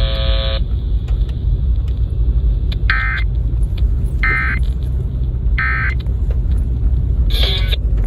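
Emergency Alert System broadcast heard through a small Midland weather radio's speaker: a steady tone cuts off about half a second in, then three short warbling data bursts about a second and a half apart, the end-of-message signal that closes the Required Monthly Test, followed by one more short burst near the end. A steady low hum runs underneath.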